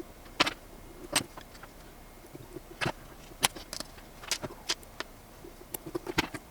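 Small sharp clicks and clinks at irregular intervals, about a dozen, from work with brass heat-set inserts and a soldering iron on a 3D-printed PETG part.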